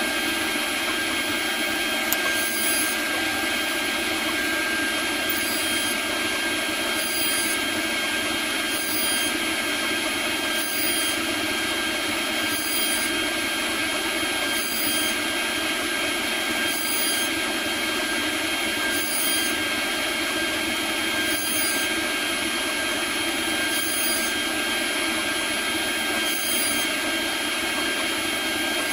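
CNC router spindle running steadily with a high whine while its end mill cuts Delrin plastic. A short rise in the high hiss comes back about every two seconds.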